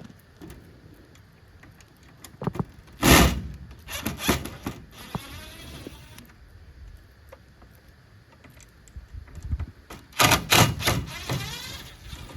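A series of hard knocks and clatter from hands-on work on a coop door: one loud impact about three seconds in, a cluster of knocks a second later, and another burst of knocks near the end, some followed by a brief rasping ring.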